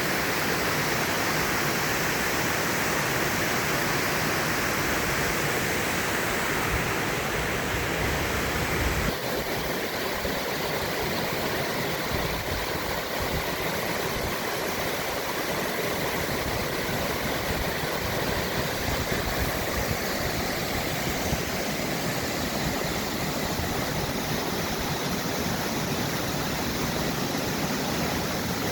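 Steady rush of falling water at Karapınar Waterfall. About nine seconds in, the sound changes abruptly to a thinner rush with less low rumble.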